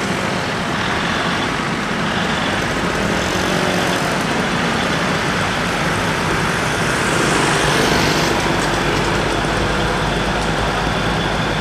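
Street traffic: motor vehicle engines running, a steady noise that grows a little louder about seven seconds in.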